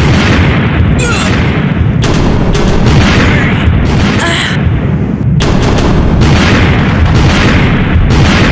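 Cannon fire and explosions in a sea battle: several sharp blasts over a continuous heavy rumble.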